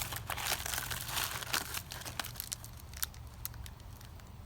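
MRE plastic packaging and pouches crinkling and crackling as they are handled, busiest in the first couple of seconds and then thinning to scattered crackles.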